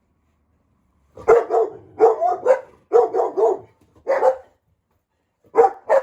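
Dog barking: a run of short, loud barks starting about a second in, a brief pause, then more barks near the end.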